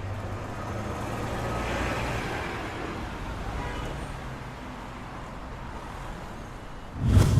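Steady low rumble with a hiss, like a vehicle running, fading slightly. Near the end comes a loud, low whoosh.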